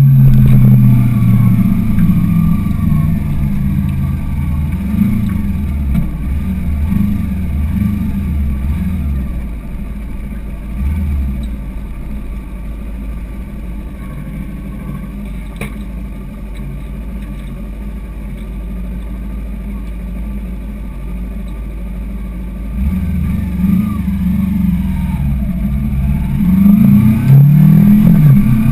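Kawasaki sport motorcycle engine under way: it runs strongly at first, eases off to a lower, quieter steady note through the middle, then revs up again near the end with a rising pitch as the bike accelerates.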